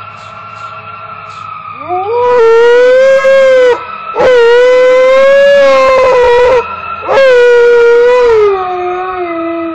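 Alaskan Malamute howling three long times, each howl gliding up and then held, the last one dropping in pitch near the end. Under the howls, fire truck sirens sound a steady tone.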